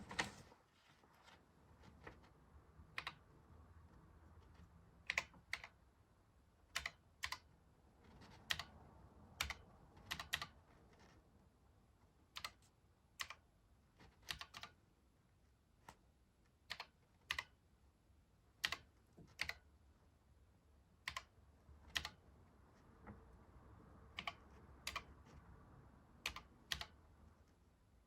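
Keys of a Sharp MZ-80K2E computer keyboard pressed one at a time at an unhurried, uneven pace, with short pauses between some strokes, entering MIKBUG monitor commands. The clicks are quiet.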